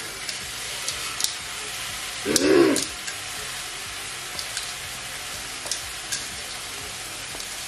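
Washed basmati rice hitting hot oil and onions in a pan, sizzling steadily, with a few light clicks of grains against the pan. About two and a half seconds in, a short low hoot-like call rises and falls once.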